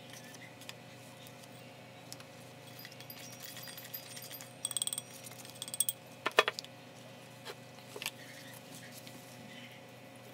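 Light clinks and taps of plastic potting tools against pots and a ceramic planter while potting soil is worked. A short ringing clink comes near the middle, then a quick run of sharp taps, with a few single taps after.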